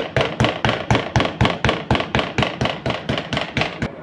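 Rapid, even strikes on a cutting board, about four a second, as a marinated fish fillet is pounded flat; they stop just before the end.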